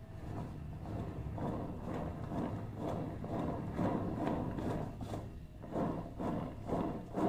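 Plastic cake turntable rumbling as it is turned by hand in uneven surges, while a plastic cake comb scrapes rings into buttercream frosting.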